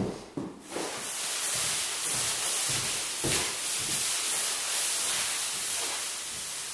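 A few short knocks, then a steady rushing hiss that sets in about a second in and holds evenly.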